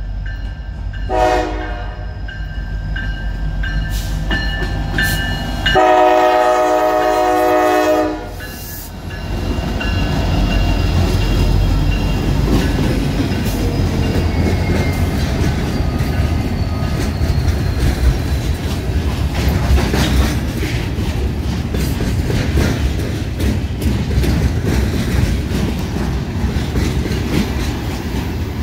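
Diesel freight locomotive's air horn sounds a short blast, then a long one, the close of the grade-crossing signal. A freight train then rolls past, a loud steady rumble with wheels clicking over the rail joints.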